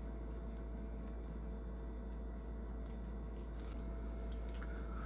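Faint, scattered clicks of small steel nuts and bolts being handled in the fingers, over a steady low hum.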